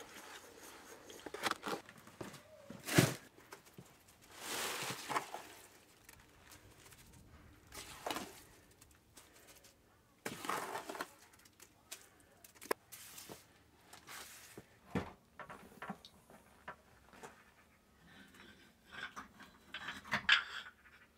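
Steel trowel scooping wet mortar from a bucket and spreading it along the top of a concrete wall: irregular scrapes with sharp clicks and knocks of metal on bucket and block.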